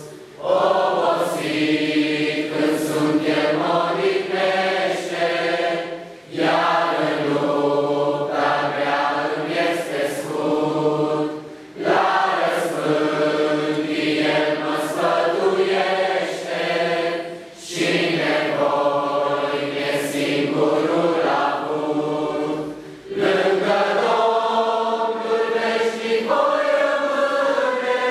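A congregation singing a Romanian hymn together, in sung phrases of about five to six seconds with a short breath between each.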